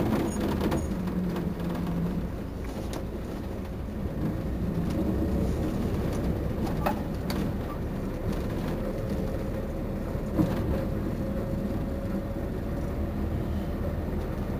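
Otokar Navigo T midibus engine idling steadily with a low rumble while the bus stands still, with a short knock about ten seconds in.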